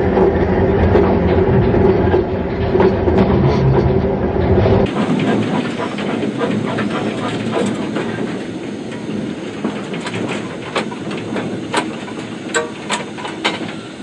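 Steam train running: a heavy low rumble for the first few seconds, then, after an abrupt change, a lighter running sound with scattered sharp metallic clicks and clanks.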